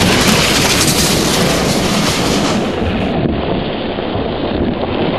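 Loud, steady rushing rumble of a bobsled speeding down its run, laid in as a sound effect; it turns duller about three seconds in.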